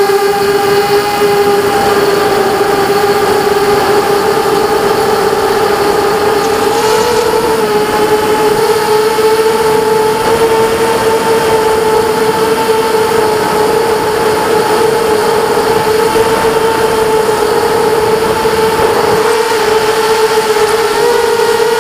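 KingKong 260 FPV racing quadcopter's brushless motors and propellers whining steadily in flight, heard from on board. The pitch rises a little about seven seconds in and again near the end as the throttle changes.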